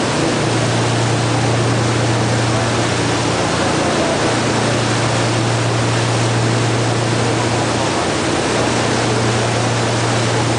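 A ferry under way: a steady low engine hum under a loud, even rush of wind and water noise.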